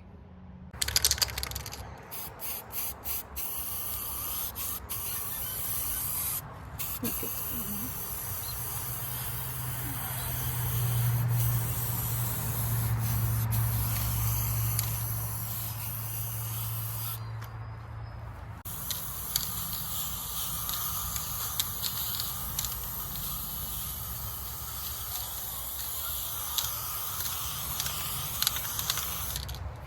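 Aerosol spray paint can spraying: a few short spurts, then long steady hissing passes broken by two brief pauses. A low hum runs under the middle.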